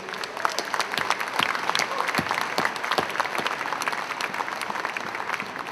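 Audience applauding, many hands clapping in a dense, steady patter that eases off slightly near the end.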